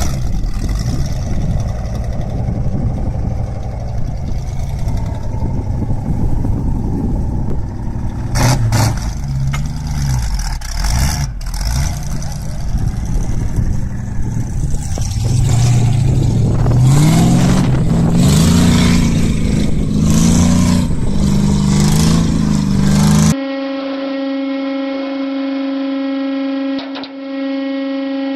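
Heavy machinery running, its engine note rising and falling as it works under load, with a few sharp knocks. About three-quarters of the way through it cuts off abruptly, and a steady, muffled machine hum of several fixed tones takes over.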